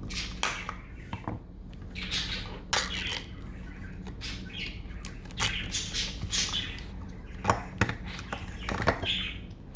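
Small plastic packet being handled and opened, crinkling and rustling in short irregular bursts with sharp crackles.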